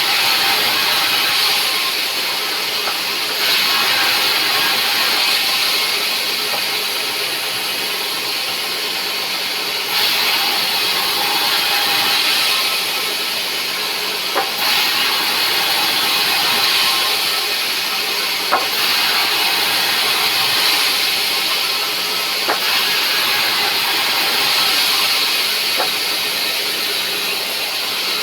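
Sawmill saw cutting rubberwood: a steady, high, hissing noise that swells and eases in stretches of several seconds, with a few sharp knocks.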